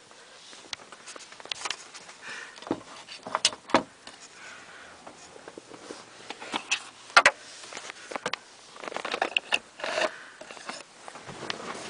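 Handling noise: scattered clicks, knocks and rustling at irregular intervals, with the sharpest knocks about a third of the way in and again past the middle.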